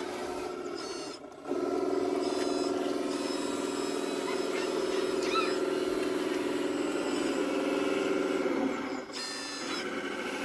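Steady electric motor whine of a radio-controlled model construction machine at work, growing louder about a second and a half in and dropping back near the end.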